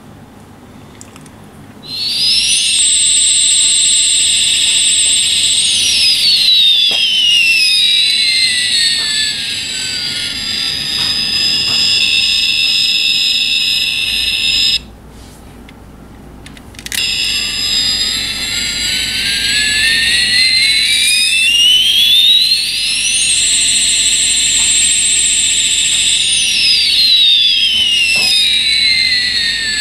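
A toy airliner's electronic jet-engine sound effect: a synthesized whine that sweeps up and down over steady high tones and hiss. It starts about two seconds in, cuts out for about two seconds halfway through, then plays again.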